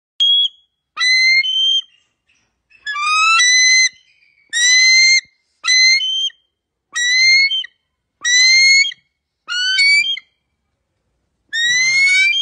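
Bald eagle calling: a series of about nine high, thin whistled calls, each rising in pitch, with short pauses between them.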